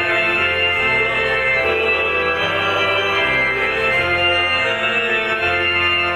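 Electronic organ playing a Vietnamese Catholic hymn: held chords over a bass that steps to a new note about every second.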